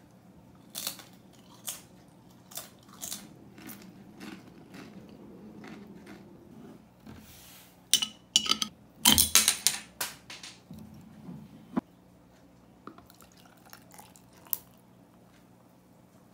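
Crisp crunches of tortilla chips being bitten and chewed, then louder clinks and clatter from a glass beer bottle being handled and its cap opened about eight to ten seconds in, followed by a few small clicks.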